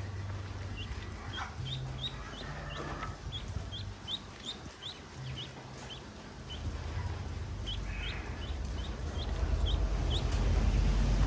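Ducklings peeping: many short, high, upward-sliding peeps in two runs, one through the first half and another near the end. A low rumble underneath grows louder in the second half.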